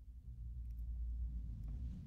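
Faint low handling rumble with a few small plastic clicks near the end as a LEGO minifigure's head is pulled off its torso.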